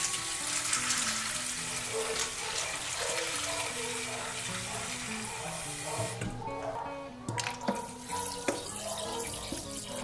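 Water from a kitchen sink's pull-out sprayer nozzle pours into a stainless-steel bowl of dried chickpeas, filling it to soak, with a steady rushing splash that stops about six seconds in. A few light knocks follow, over background music.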